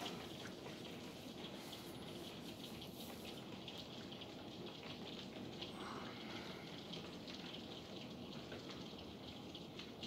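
Heavy thunderstorm rain falling steadily, with many individual drops ticking close by.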